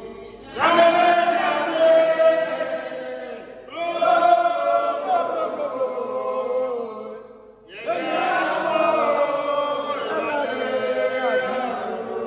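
Several voices singing a religious chant together, in three long sustained phrases with brief pauses between them.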